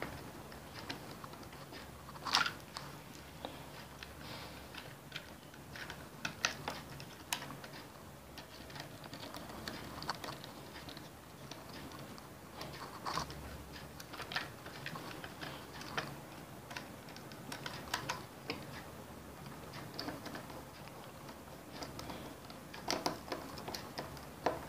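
Screwdriver tightening wires under the brass terminal screws of switches and sockets on a plastic extension board: faint, irregular small clicks and taps, the sharpest about two seconds in.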